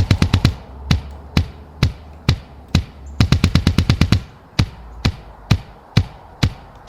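Woodpecker pecking at wood while feeding: single sharp knocks about half a second apart, broken by quick runs of rapid taps at the start and again about three seconds in.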